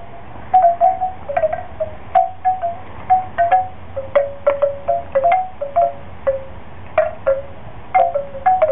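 Wind chime knocked about by a puppy jumping and pawing at it. Its tubes clang in uneven clusters of a few different notes, two or three strikes a second, each note ringing briefly.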